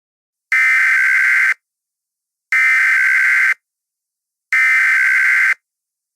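Emergency Alert System SAME header: three identical bursts of harsh, screeching digital data tones, each about a second long and two seconds apart. This is the coded header that opens a new emergency alert.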